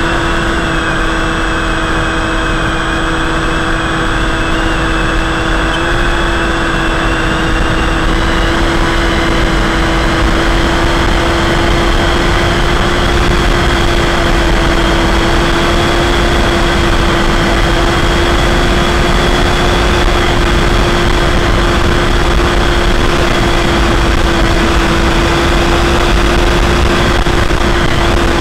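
Electric motor and pusher propeller of a Multiplex EasyStar II RC foam plane running at steady cruise throttle, heard from the onboard camera: an even, steady hum with wind rushing over the microphone.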